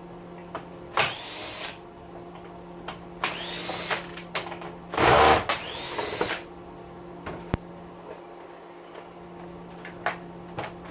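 Power drill running in three short bursts, spinning up and back down each time, as it backs screws out of an electric string trimmer during a teardown. A few light clicks come later, over a steady low hum.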